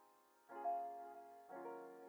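Quiet background piano music: a chord struck about half a second in and another about a second later, each left to fade.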